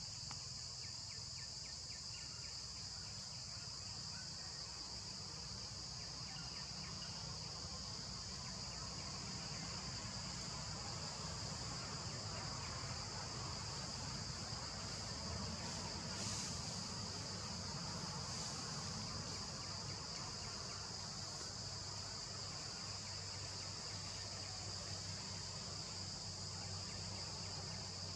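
Steady, high-pitched drone of an insect chorus in the forest, unbroken throughout, with a low rumble underneath.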